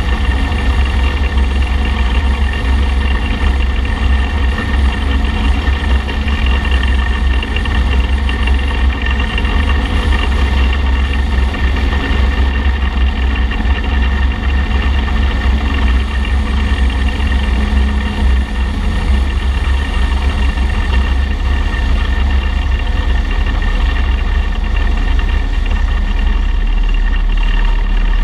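Motorcycle cruising at a steady speed: a heavy, steady wind rumble on the front-mounted microphone, with engine and road noise underneath.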